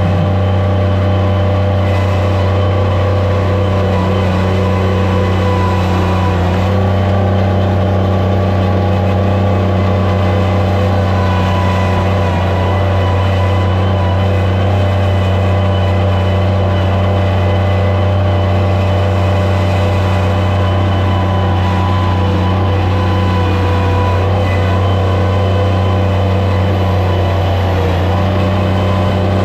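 Skid steer loader's engine running steadily at a constant speed, a loud low drone with a steady whine layered above it.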